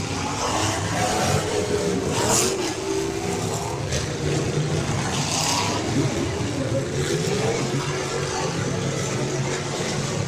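Several derby cars' engines running hard around the track, their pitches rising and falling as drivers rev and lift, over a steady engine drone. Two short, harsher noisy swells come about two and five and a half seconds in.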